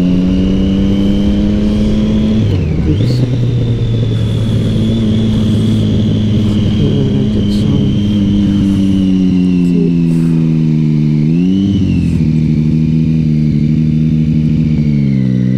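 Motorcycle engine running under way, heard from the rider's seat with wind rush on the microphone. The revs dip sharply about three seconds in and settle lower, then briefly rise and fall twice near the end.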